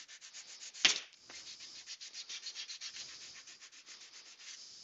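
Hand sanding a small wooden cut-out with a sanding block: quick back-and-forth scraping strokes, several a second. A single sharp knock sounds about a second in.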